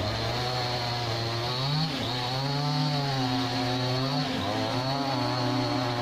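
Chainsaw cutting through a fallen tree trunk, its engine running under load with the pitch sagging and recovering every couple of seconds.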